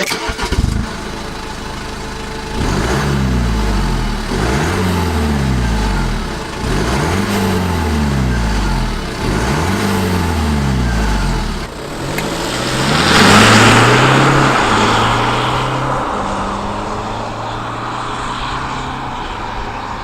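Stock BMW 420d four-cylinder diesel engine starting, then revved four times in rising-and-falling sweeps. About twelve seconds in it rises again to its loudest point and settles into a steady drone.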